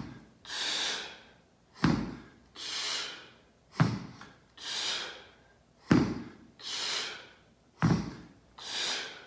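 Hex dumbbells set down on a rubber gym floor in turn during alternating renegade rows: a dull thud about every two seconds. Between thuds comes a strong breath that swells and fades.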